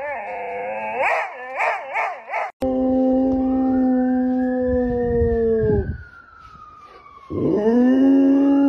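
A boxer dog howls in short notes that rise and fall, then the sound cuts to a Rottweiler howling. The Rottweiler's long, steady howl sinks in pitch and stops, and after a short pause a second howl rises and holds.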